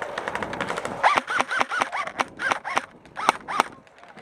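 Airsoft gun firing a rapid string of about a dozen sharp shots over a couple of seconds. Each shot carries a brief ringing tone that rises and falls, with a short pause before the last two shots.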